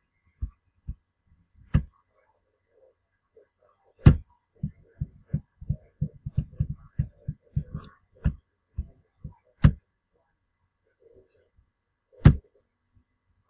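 Computer keyboard typing and mouse clicks heard as low, sharp knocks: a few single clicks, then a quick run of about twenty keystrokes from about four to eight seconds in, with single louder clicks after it.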